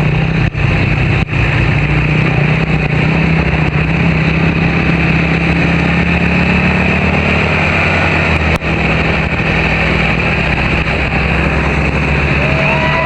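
Land Rover 4x4's engine running steadily while driving, a constant drone under a loud rush of wind and road noise, briefly dipping a few times.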